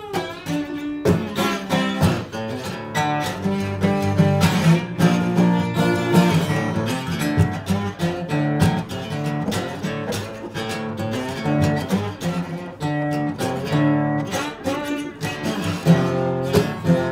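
Acoustic guitar played bottleneck-style with a glass slide, picked and strummed with notes gliding in pitch: an instrumental slide blues break.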